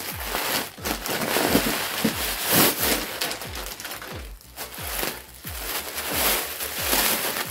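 Plastic packaging crinkling and rustling as a plastic-wrapped parcel is pulled from a plastic mailing bag and handled, with soft low bumps throughout.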